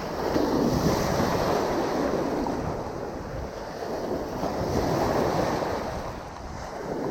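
Gulf surf washing and breaking, with wind on the microphone; the water noise swells about a second in and again about five seconds in.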